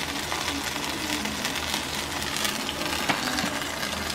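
A consomé-dipped tortilla frying in oil in a skillet: a steady sizzle with scattered little crackling pops.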